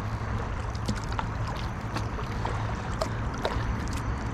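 Kayak paddling on a river: water splashing and dripping off the paddle in irregular small splashes, over a steady low rumble.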